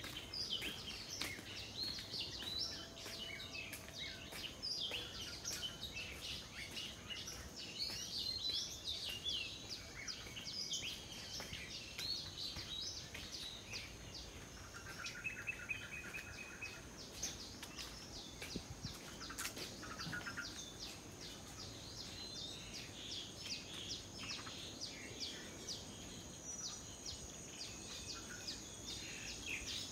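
Many birds chirping and calling, overlapping one another throughout, over a steady high-pitched hum and a low even background noise.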